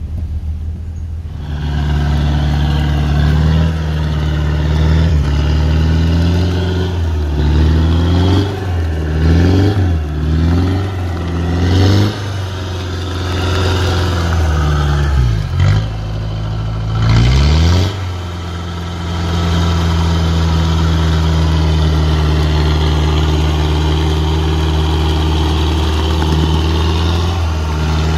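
Off-road vehicle engine running hard, revving up and down several times around the middle, then holding a steady high note.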